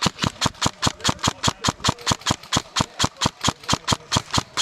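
A player running, his footfalls and rattling gear making rapid, even knocks about six times a second.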